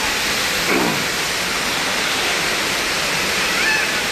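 Steady rush of falling water from a waterfall, with a brief falling squeak about a second in and faint short chirps near the end.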